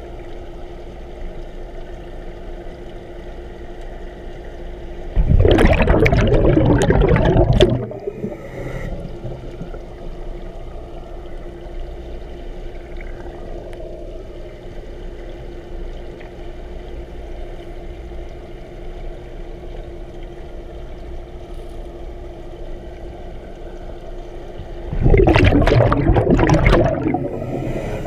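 Heard underwater through a head-mounted GoPro housing: a scuba diver exhales twice, each breath a gush of bubbles from the regulator lasting about two and a half seconds, over a steady underwater hum.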